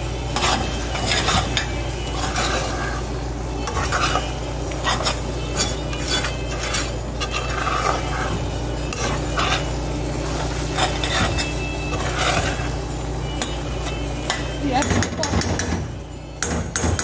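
A metal spoon stirring and scraping thick, sticky sugar cake (grated coconut cooked in sugar) around an aluminium pot, in repeated scraping strokes with a light sizzle as the mixture cooks nearly dry. A steady low hum runs underneath and drops out near the end.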